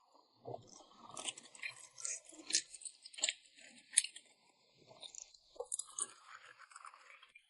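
A person chewing a mouthful of red-oil tossed rice noodles, with irregular wet smacks and clicks, busiest in the first half.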